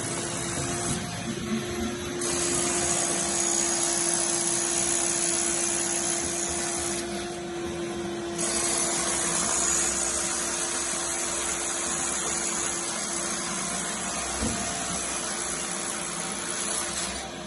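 A motor running steadily with a hiss, dipping twice for a moment.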